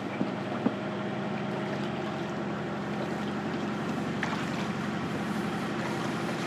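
Sailboat's electric drive motor running steadily, a low hum with a few higher tones over it, with a couple of faint clicks.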